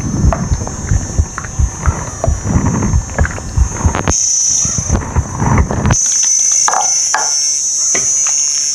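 Shrimp curry cooking hard in a wok: a steady high sizzle with low, irregular bubbling, the bubbling stopping abruptly about six seconds in.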